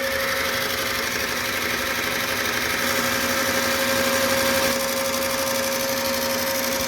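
RCA TP-66 16mm film projector running with no film loaded: a steady motor hum with a fast, even mechanical rattle.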